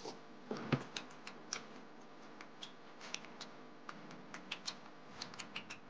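Close-up eating sounds: chopsticks clicking against the plate and dumplings, with small mouth sounds of chewing, as a run of light irregular clicks. There is one louder knock about a second in.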